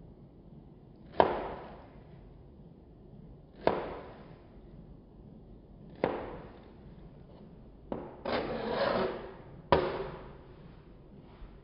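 Chef's knife chopping through mango flesh onto a plastic cutting board: four sharp knocks about two and a half seconds apart. About eight seconds in there is a second of scraping as the blade drags over the board.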